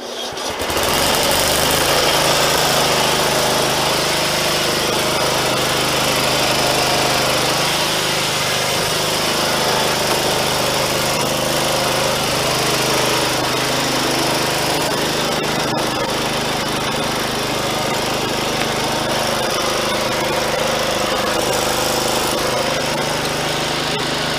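Riding lawn mower engine running steadily, a loud, even drone with a rough, rasping edge that starts abruptly.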